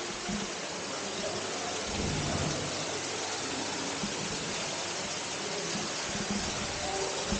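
Steady rushing of falling water, with a low rumble swelling briefly about two seconds in.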